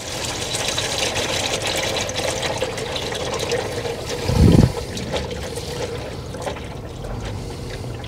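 Warm engine oil pouring in a steady stream from the drain of a Detroit Diesel 6-71 engine's oil pan into a catch pan. A short dull thump comes about halfway through.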